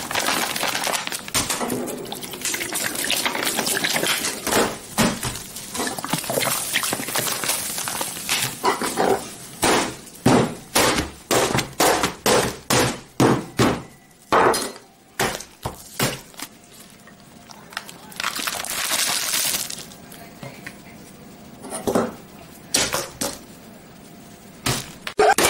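Laptops and household things being wrecked with flour and blows: a rush of flour being poured onto a laptop, then a fast run of about a dozen hard smashing hits, roughly two a second, with breaking and clinking, then a few scattered single knocks.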